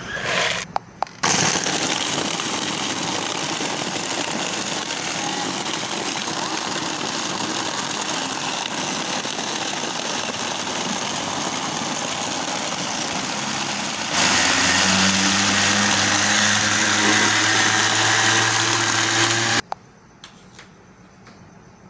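Electric blender (kitchen grinder) running, blending ice cubes with strawberries and milk. It starts about a second in after a few clicks, runs steadily, gets louder with a steady hum about two-thirds of the way through, and cuts off suddenly near the end.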